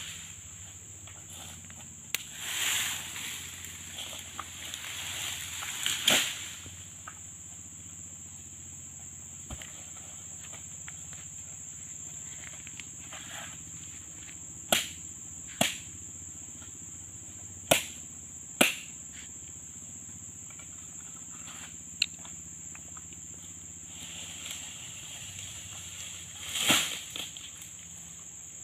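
Steady high-pitched drone of tropical insects, with a few sharp knocks in pairs about a second apart and some brief bursts of rustling.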